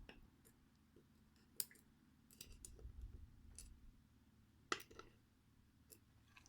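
Faint, scattered clicks of small metal lock parts and tools being handled while an ASSA 600 cylinder is taken apart, with two sharper ticks about a second and a half in and near five seconds in.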